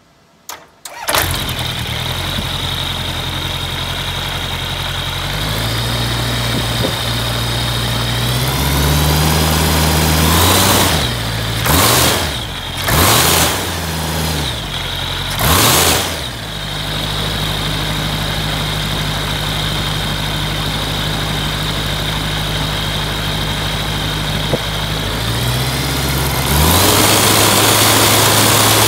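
EdgePerformance EP912STi turbocharged aircraft engine turning a propeller on a test stand during its test-run: it catches about a second in and runs steadily, steps up in speed twice, is revved up sharply three times, drops back, then rises to a higher steady speed near the end.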